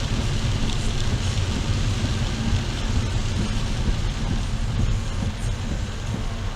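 Heavy rain beating on a moving car, heard from inside the cabin as a steady hiss over a low rumble of the road and engine.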